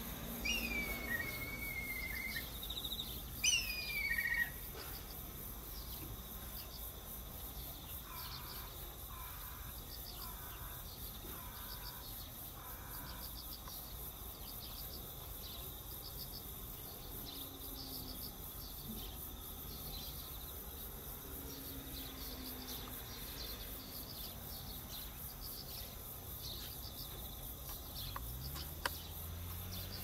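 Black kite giving its whistled 'pee-hyororo' call twice in the first few seconds, each a high whistle sliding down in pitch, the second falling further and wavering at the end.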